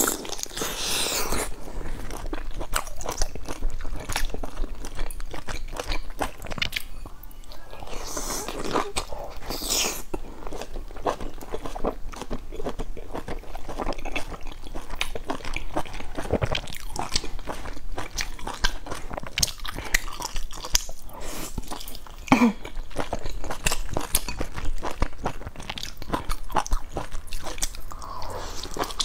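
Close-up eating sounds: biting into and chewing large steamed buns stuffed with glass noodles, full of small clicks from the mouth and food.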